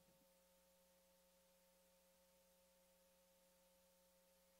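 Near silence, with a faint steady hum of a few constant tones.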